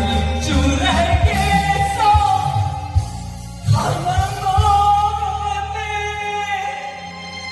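A woman singing into a karaoke microphone over a karaoke backing track, holding long drawn-out notes, with a brief sliding break in her voice just before the middle.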